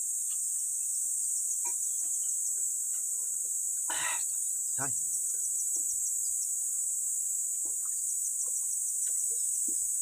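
Steady, high-pitched chorus of insects, with faint repeated chirping ticks now and then, and two brief louder sounds about four and five seconds in.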